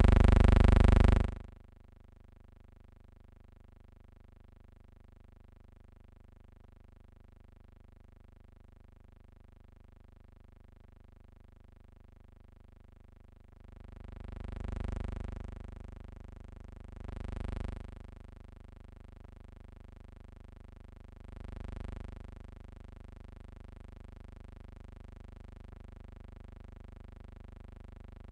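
Loud machine-gun fire from a helicopter door gun, cut off abruptly about a second in, leaving the steady low hum of an old film soundtrack. Past the middle, three low, muffled explosion rumbles each swell up and fade over a second or two.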